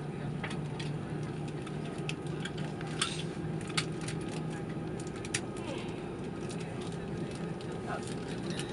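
Airliner cabin ambience: a steady low hum with faint voices of other passengers and scattered sharp clicks and knocks.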